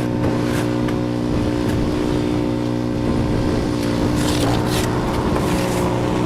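Cub Cadet 2X 30-inch EFI two-stage snow blower engine running at a steady, even speed, with short hissing bursts about four seconds in.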